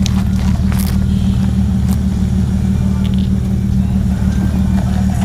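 Jeep Wrangler's engine running steadily at low revs as it crawls over rocks and gravel, with a few light clicks over the engine sound.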